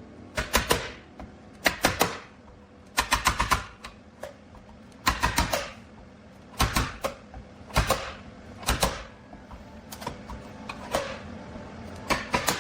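Clusters of rapid sharp taps or clicks, a short group about once a second, about ten groups in all.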